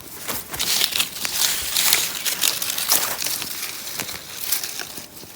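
Dry twigs and leaves crunching and crackling in irregular, close-up bursts.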